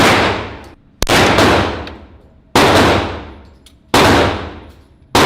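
Four handgun shots fired at a steady pace, about one every second and a half, each with a sharp crack followed by a long echoing decay.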